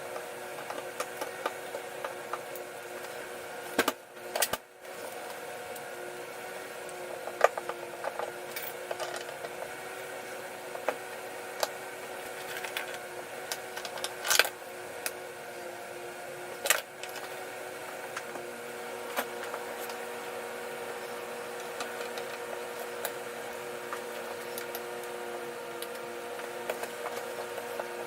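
Sharp clicks and cracks, irregular and scattered, from a heated headlight lens being pried off its housing, the plastic and softened sealant giving way. A steady hum sits underneath.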